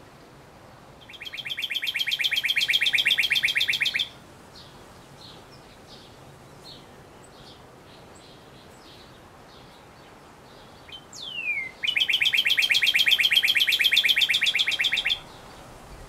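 Male northern cardinal singing: two long phrases of rapid, evenly repeated whistled notes, each lasting about three seconds. The second phrase is introduced by a sharp downslurred whistle. Faint, high chips of other birds sound in the pause between the phrases.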